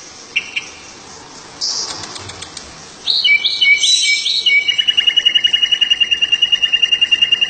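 Small songbird held in the hand singing: a single short chirp, then about three seconds in a few clear whistled notes that run into a long, rapid, even trill.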